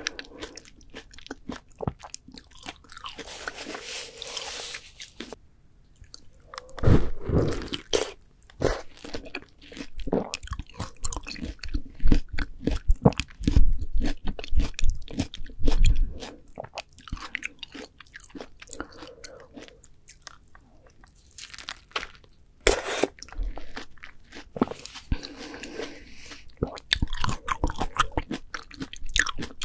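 Close-miked bites and chewing of ripe, juicy melon: crisp crunches with wet, slurpy squelches of juice, in irregular bursts.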